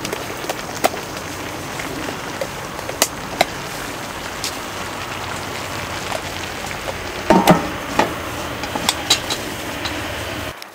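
Pork and kimchi stew simmering on a cast-iron sot-lid griddle: a steady sizzling and bubbling hiss with scattered small pops and wooden-spatula taps. About seven and a half seconds in comes a short metallic clatter as an aluminium lid is set down over the stew.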